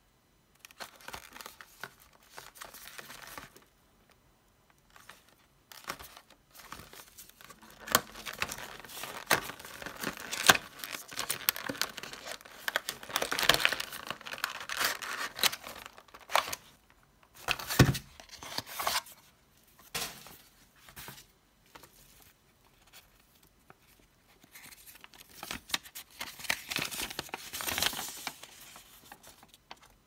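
Cardboard and plastic packaging being handled: a paper box slid open, a clear plastic tray crinkling and a folded paper instruction sheet being opened out. Irregular bursts of rustling and crinkling with sharp clicks, broken by short pauses.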